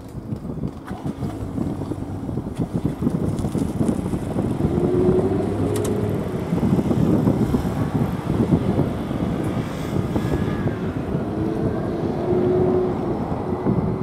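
Jet airliner passing low overhead: a deep rumble that builds over the first few seconds and then stays loud, with a faint hum that wavers slightly in pitch.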